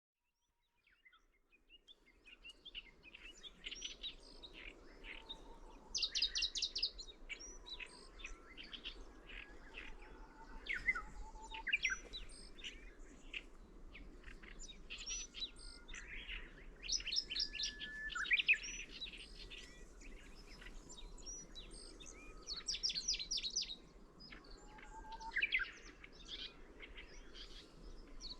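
Middendorff's grasshopper warbler singing: repeated short phrases of sharp chipping notes, each building to a rapid high burst, every several seconds, over a low steady background rumble. It fades in about a second in.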